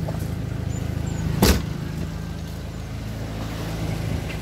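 A car engine idling steadily, with a single loud slam about a second and a half in, fitting a car door being shut.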